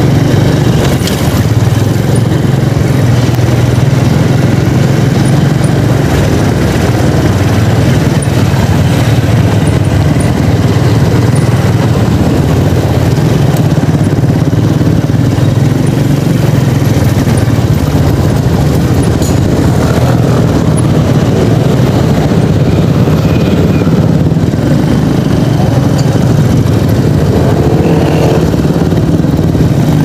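Motor scooter's small engine running steadily as it rolls slowly through traffic, with road and wind noise over it.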